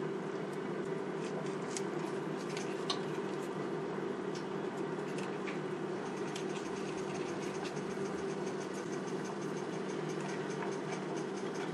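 White peanut sauce simmering in a pan, with faint scattered pops over a steady low hum.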